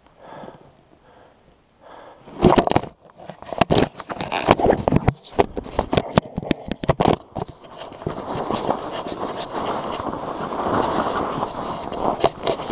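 Camera handling noise: jacket fabric rubbing and knocking against a GoPro's microphone, with many sharp knocks from about two seconds in and a steadier scraping hiss in the second half.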